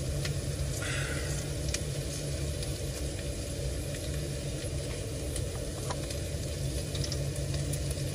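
Diced onions sizzling steadily in a small steel pan on a portable gas stove.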